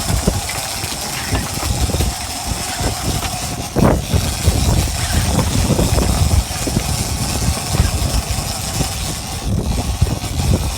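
Fishing boat's engine running steadily under rumbling noise, with a single knock about four seconds in.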